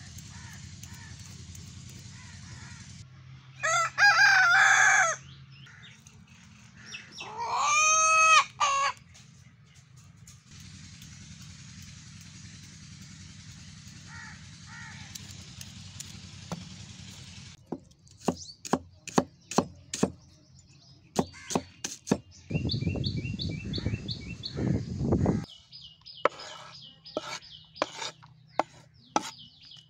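A rooster crowing twice, about four and eight seconds in, the second crow longer and bending upward in pitch. In the second half comes a run of sharp knocks and clicks.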